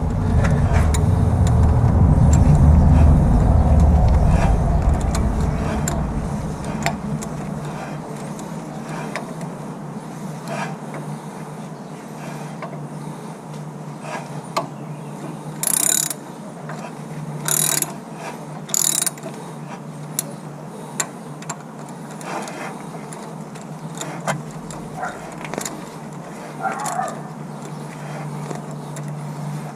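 Hand tools worked on a car engine: a ratchet turning a bolt in a few short bursts of rapid clicking, with scattered clinks of metal tools, over a steady low hum. A deep rumble is loudest in the first few seconds.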